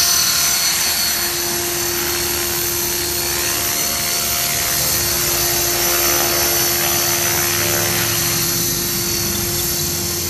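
Align T-Rex 500 electric RC helicopter running at speed: a steady high-pitched whine from its brushless motor and gears over the whirr of the spinning rotor blades.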